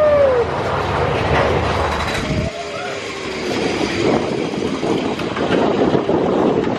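Mine-train roller coaster running along its track at speed, a loud steady rattling clatter of the cars, with a rider's yelled 'whoo' at the start and a shorter shout about halfway through.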